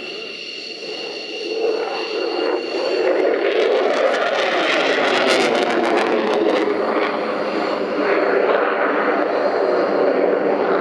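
Engine noise of a jet aircraft flying a display overhead, growing loud about three seconds in and then holding loud and steady.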